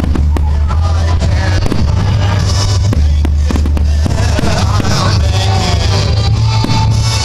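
Fireworks going off over loud music with a heavy, steady bass line, several sharp bangs cutting through the music.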